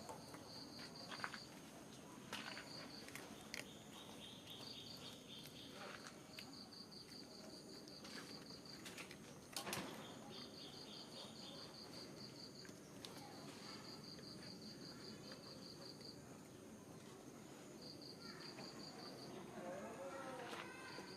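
Faint insect chirping in repeated high, pulsed trills, each lasting a second or two with short gaps, over scattered clicks and knocks, one louder click about ten seconds in. A short wavering call comes near the end.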